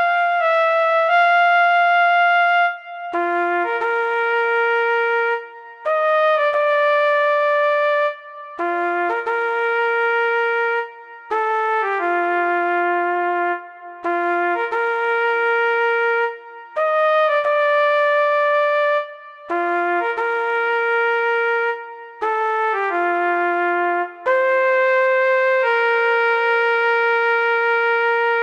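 Brass-toned alarm melody of a mock emergency alert, played as held notes with two notes sounding together. It comes in short phrases of a few notes each, with a brief break every two to three seconds, the same pattern repeating.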